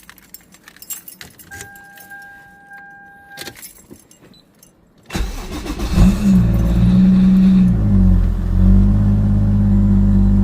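Keys jangling and clicking, with a steady electronic warning tone for about two seconds. About five seconds in, a car engine is started: it flares up briefly and settles into a steady idle.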